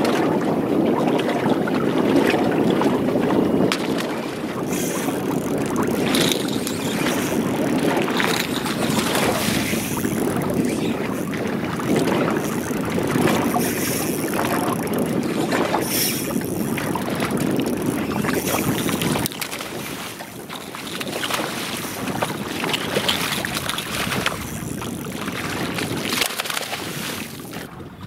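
Steady wind and water noise on a small open boat, with scattered clicks and knocks.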